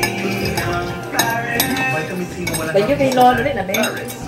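Spoons and forks clinking against ceramic plates and bowls during a meal, over background music.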